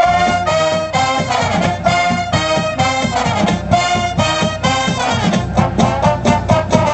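Marching band brass section playing a loud, fast tune of short, punchy chords, starting abruptly.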